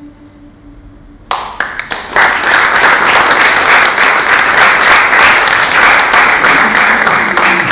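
Audience applauding, starting suddenly just over a second in and quickly swelling to steady, dense clapping.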